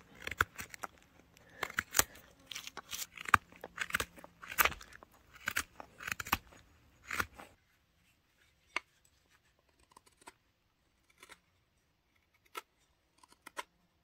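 Spoon-carving knife slicing shavings out of the bowl of a wooden spoon: a quick series of short, crisp cuts that stops about seven and a half seconds in, leaving only a few faint scattered clicks.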